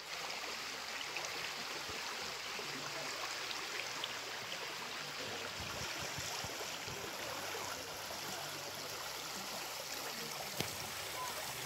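Shallow, rocky stream flowing over stones in small riffles: a steady rush of running water. One brief click about ten and a half seconds in.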